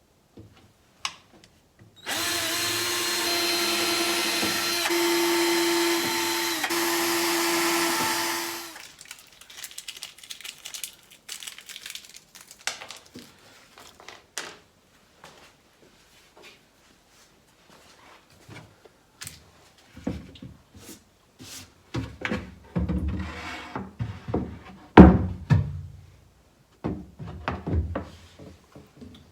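Power drill running for about six and a half seconds, boring screw holes in plywood for a cabinet hinge, with two brief pauses in the run. Then scattered clicks and knocks of handling, growing into a cluster of louder knocks and a heavy thump near the end.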